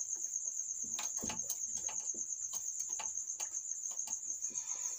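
A cricket chirps steadily in a fast, even, high-pitched pulse. From about a second in, a cloth rubs across a whiteboard in a run of short wiping strokes.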